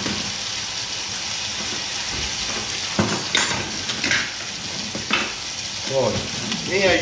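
Coiled sausage sizzling in a metal frying pan: a steady frying hiss with a few sharp pops scattered through it.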